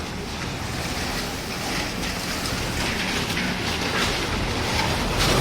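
Strong wind blowing in a storm, buffeting the microphone with a heavy, steady rumble that grows slightly louder near the end.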